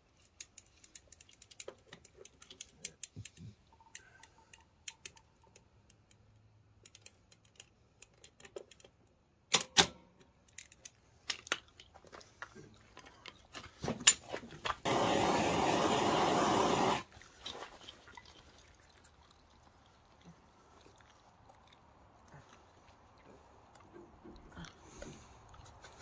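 Scattered light clicks and knocks of tools and parts being handled. About fifteen seconds in comes a steady two-second hiss of compressed air, as a lawn tractor tire is aired up.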